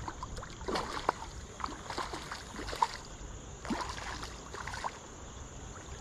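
Shallow creek water splashing and sloshing as a hooked smallmouth bass is played and brought in by an angler wading in it, with scattered short sharp ticks.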